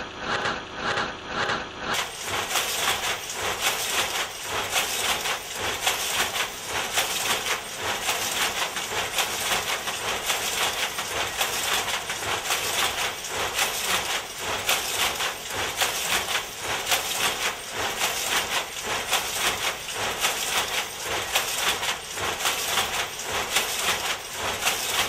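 Power looms running: a dense, fast, steady clatter of shuttles and beaters knocking, coming in fully about two seconds in.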